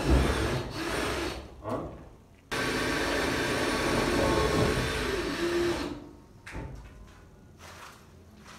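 Electric power tool running in two bursts: it stops about a second and a half in, starts again abruptly a second later and runs for about three and a half seconds. A few light knocks follow.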